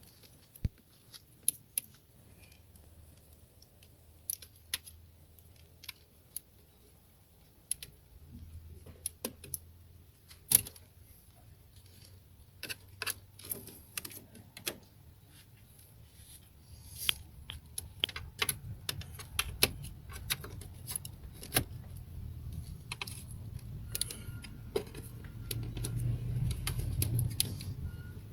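Irregular clicks, taps and rattles of small plastic and metal parts being handled while an Opel Corsa C relay box is taken apart. The clicks come thicker in the second half, over a low hum that grows louder near the end.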